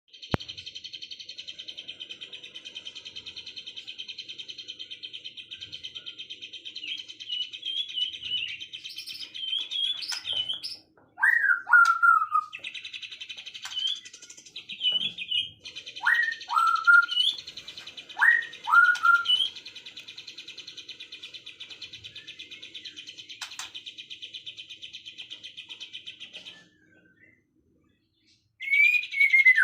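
Songbirds singing: a long, very fast buzzing trill held for many seconds at a stretch with a few short breaks, and over it loud whistled notes sliding down in pitch, in small groups, several times.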